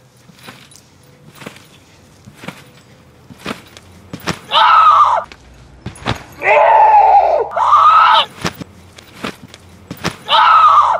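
A person bouncing on a trampoline, a soft thump of the mat about once a second, under four loud, drawn-out high-pitched cries of about a second each.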